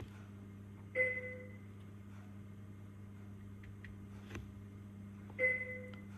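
Two short electronic beeps about four seconds apart, each a clear tone that fades within half a second, over a steady low electrical hum.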